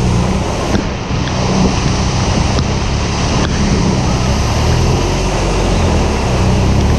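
BMW R 1200 RS motorcycle's boxer-twin engine running steadily under way, with constant wind rush over the microphone.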